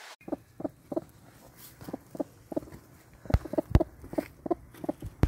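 Broody hen sitting on her eggs, clucking steadily in short, low notes about three a second, with a few low thumps.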